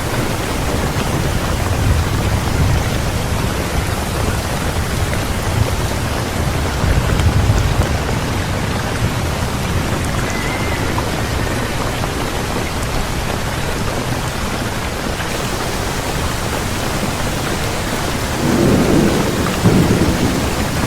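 Thunderstorm: steady heavy rain with thunder rolling in low rumbles, and a louder peal of thunder near the end.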